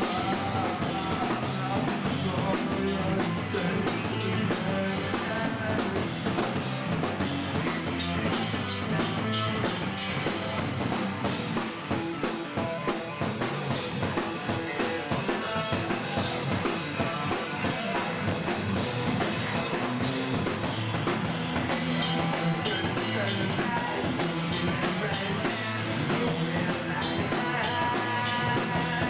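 A rock band playing live and loud, with distorted electric guitars over a driving drum kit. The sound is steady and unbroken throughout.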